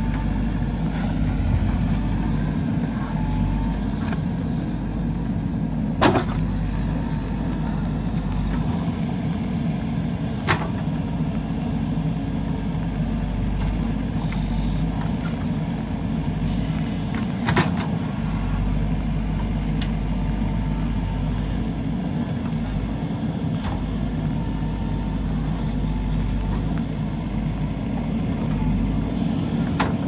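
JCB backhoe loader's diesel engine running steadily under load as the backhoe arm digs, with a few sharp knocks from the bucket and boom working in the soil.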